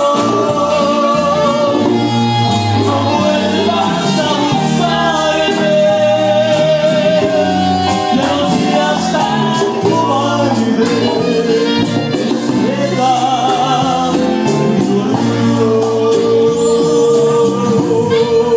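Live Latin dance band playing at full volume: a male lead singer over keyboards, saxophone, timbales and a metal scraper (güira) keeping a steady beat.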